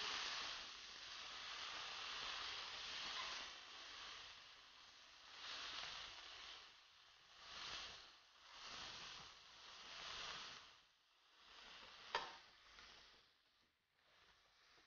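Faint sizzling of beef cubes frying in oil in a frying pan, steady at first, then swelling and fading in waves about a second apart. There is a single sharp click about twelve seconds in, and the sizzle dies away near the end.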